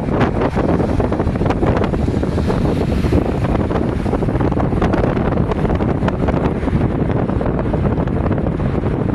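Heavy wind buffeting the microphone, loud and steady, over the rumble of a 4000 class electric multiple unit train approaching the platform.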